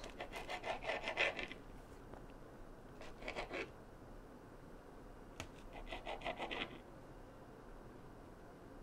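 Knife sawing back and forth through canned buttermilk biscuit dough and scraping on a plastic cutting board, in three short spells of quick strokes.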